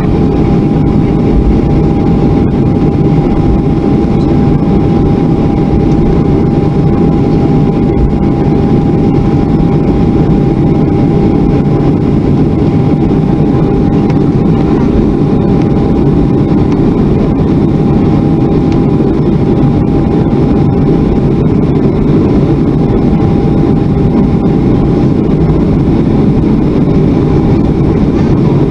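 Boeing 737-400 cabin noise from its CFM56-3 turbofan engines at taxi power, heard from a window seat: a loud, steady rumble with a constant whine held on one pitch.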